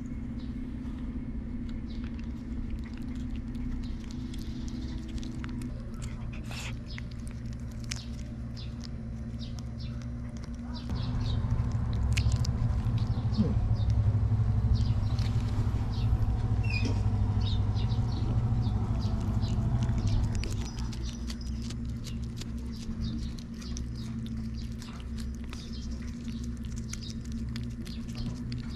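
Cats licking paste treat from a hand-held tube, small wet clicks and smacks over a steady low hum. About eleven seconds in a louder low rumble comes up, runs for about ten seconds and drops away.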